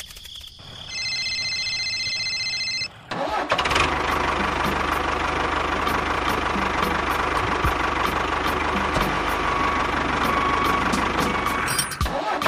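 A steady high-pitched tone for about two seconds, then a small engine starting and running steadily with a low chugging beat, as from a model mini tractor.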